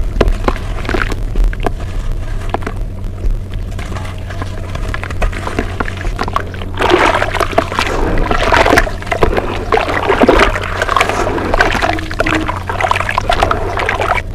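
Wet brown dirt paste being squished and crumbled, with dense crackling and squelching that grows busier and louder about halfway through, over a steady low hum.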